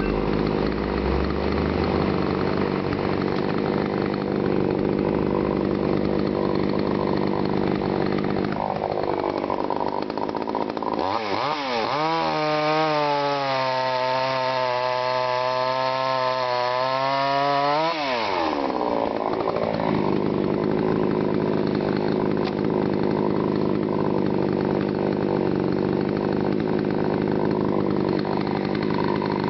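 TimberPro CS-6150 62 cc two-stroke chainsaw running at full throttle, cutting through dense green honey locust. About nine seconds in its pitch rises and wavers for several seconds, then drops back to a steady note around eighteen seconds in.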